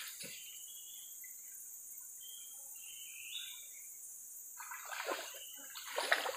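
Steady high-pitched drone of forest insects, with a few short bird chirps about two to three seconds in and a couple of short knocks near the end.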